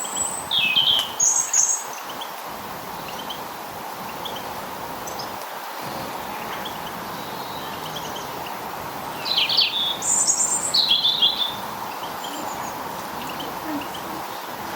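Small garden birds chirping in two short bouts of high calls, one at the start and another about two-thirds of the way through, over a steady background hiss.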